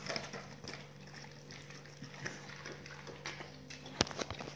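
Pit bull chewing and licking raw meat, a run of small scattered clicks and crackles, with one sharp click about four seconds in.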